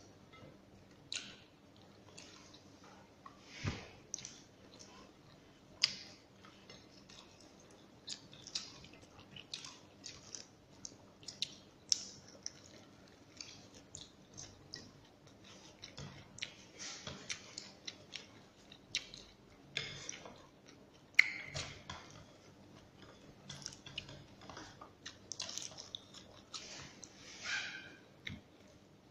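A person chewing and eating rice and sautéed bottle gourd with chicken by hand, close to the microphone: irregular short clicks and mouth noises, a few of them louder, with no steady rhythm.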